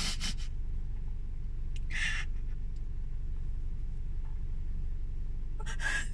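Steady low hum of an idling car heard inside the cabin, with a crying woman sniffing sharply three times: at the start, about two seconds in, and near the end.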